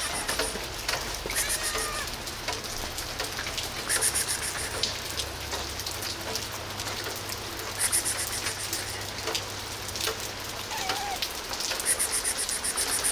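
Steady rain falling on pavement, with many sharp close drips. A short high-pitched sound repeats about every four seconds.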